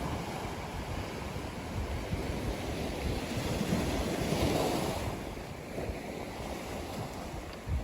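Ocean waves breaking on a sandy beach: a wave swells and crashes about four seconds in, then washes back, over a low rumble of wind on the microphone.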